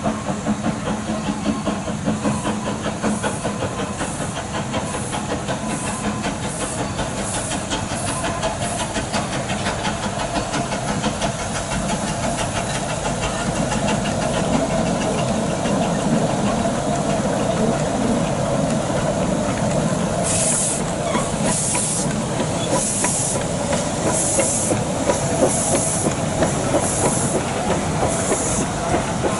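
Narrow-gauge steam locomotive working, a steady rumble with hissing steam puffs, quick at first and then slower and longer in the last third.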